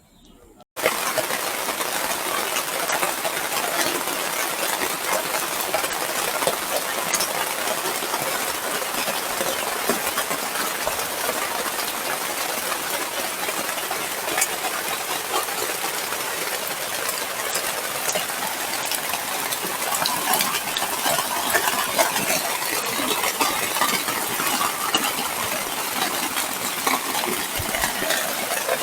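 Heavy rain falling steadily: a dense, even hiss of drops with many sharp ticks. It starts suddenly about a second in.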